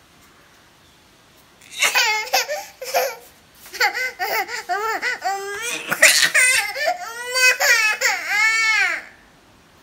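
Toddler's high-pitched squealing and laughing, turning into crying and wailing near the end, after a quiet first second or so.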